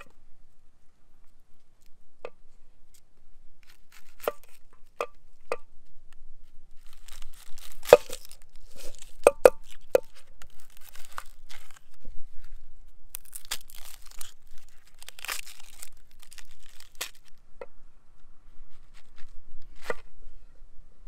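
Kitchen knife working on a wooden cutting board, giving scattered sharp knocks of the blade on the wood, several close together about eight to ten seconds in. Between them come two stretches of dry, papery crackling as the onion's skin is peeled and torn.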